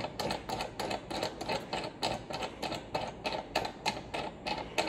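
Quick run of small metallic clicks, about four or five a second, as the knob on a VISM pistol rear sight tool is turned by hand.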